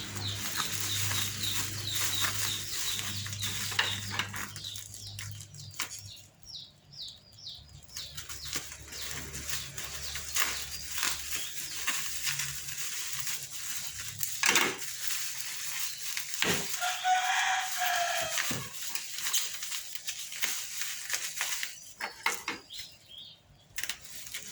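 Chickens clucking and peeping in short calls, with one longer drawn-out call about two-thirds of the way through.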